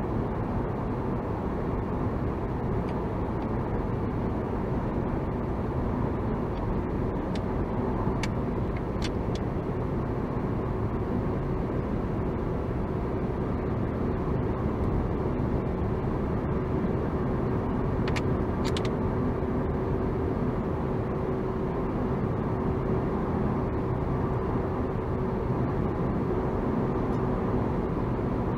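Steady car road noise of tyres and engine heard inside the cabin through a dashboard camera's microphone, with a faint steady hum and a few faint ticks.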